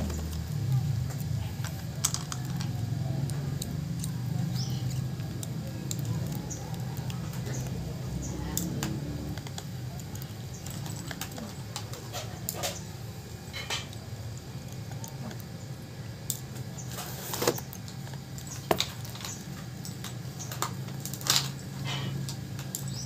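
Light, scattered clicks and taps of a precision screwdriver set being handled: a bit taken from its plastic case and fitted, then the small screwdriver working the screws of an opened smartphone's midframe. A steady low hum runs underneath.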